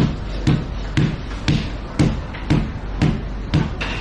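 Butcher's cleaver chopping on a wooden block: a steady run of sharp thuds, about two a second, over steady background noise.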